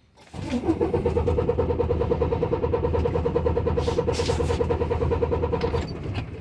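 Starter cranking a day cab semi truck's diesel engine: a brief rising whine as it spins up, then a fast, even chugging that stops about six seconds in.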